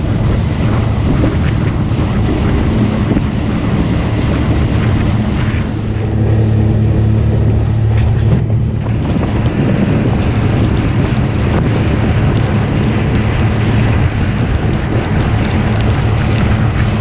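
Boat motor running steadily under way, with heavy wind buffeting the microphone.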